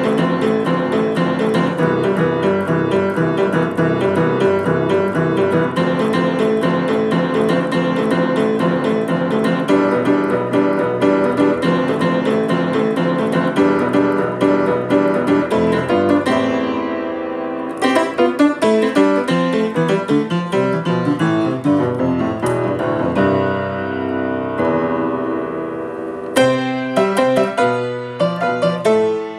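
Piano playing a busy, continuous stream of notes that gives way, about halfway through, to sparser phrases with clear gaps between chords.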